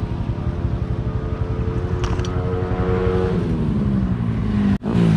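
Motorcycle engine running under way, its pitch holding and then falling steadily about three seconds in as the bike slows down. There is a brief break in the sound near the end.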